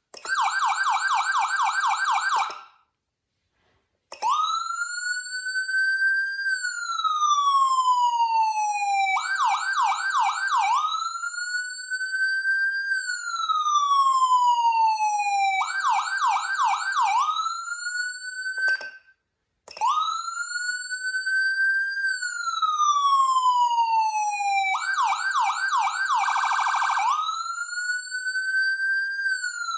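Whelen CenCom Sapphire electronic siren cycling through its tones. A fast warbling yelp runs for the first couple of seconds and then stops. After a short pause comes a slow rise-and-fall wail, broken every few seconds by short bursts of rapid yelps, with another brief break about two-thirds of the way through.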